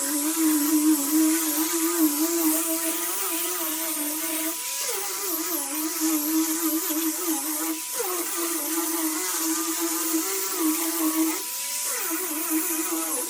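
Electric random orbital sander running against a wood surface, a steady buzzing hum whose pitch wavers as the pressure changes. It breaks off briefly twice.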